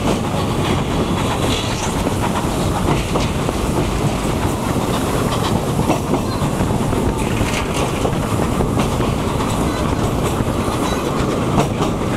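Running noise inside a passenger coach of a steam-hauled train moving at speed: a steady rumble of wheels on the rails, with scattered clicks.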